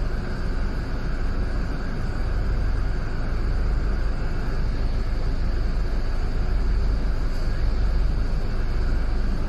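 Interior noise of a running London double-decker bus heard from the upper deck: a steady deep rumble from the engine and road, with an even hiss over it.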